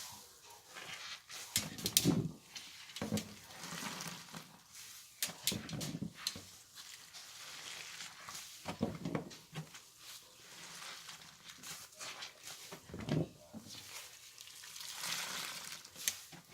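Wet sponge loaded with laundry soap squeezed by hand over and over: repeated squelches with a crackle and fizz of foam.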